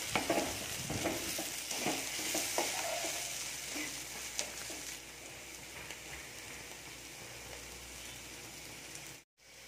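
Sliced ivy gourd sizzling in coconut oil in an open kadai, with a wooden spatula scraping and turning it over the first few seconds; after that the sizzle goes on alone, a little quieter, and drops out briefly near the end. The slices are being fried uncovered so they shrink and crisp in the oil.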